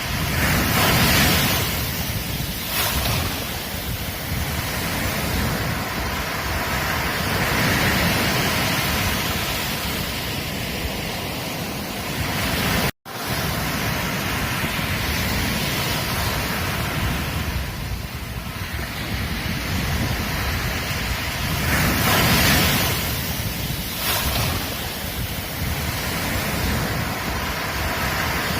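Ocean surf breaking on a beach: a continuous wash of water that swells as each wave breaks and ebbs between them, with wind rumbling on the microphone. The sound cuts out for an instant a little before halfway.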